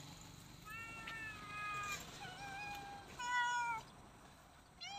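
Hungry stray cats meowing about five times in quick succession, the loudest call about three and a half seconds in, begging for food.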